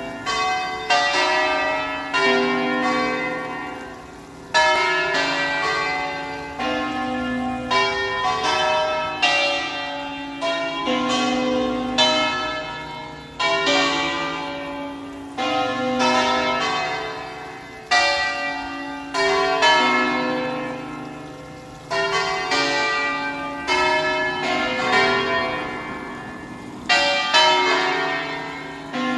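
Church bells ringing a peal: several bells of different pitch are struck over and over, and each stroke rings on and fades. A loud stroke comes about every two seconds.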